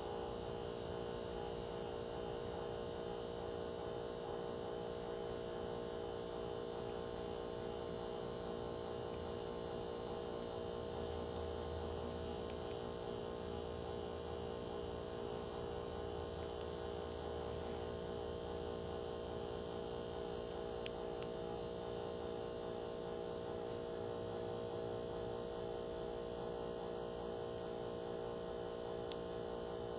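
A steady hum made of several fixed tones that does not change, with a fainter low drone coming in for a few seconds around the middle.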